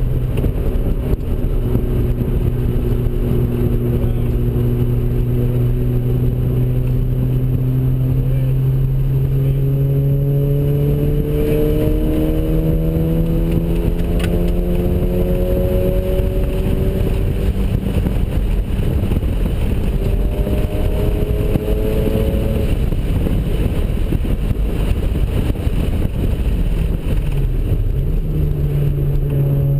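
Mazda RX-7's ported twin-turbocharged 13B rotary engine running hard under load at low boost. The engine note climbs steadily through the revs, shifts in pitch about halfway through, and dips briefly near the end before climbing again.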